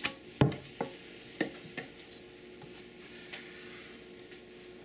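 Wooden lefse stick tapping and scraping against a lefse griddle and pastry board as potato lefse rounds are flipped and lifted: several light taps, most of them in the first two seconds, with fainter ones later.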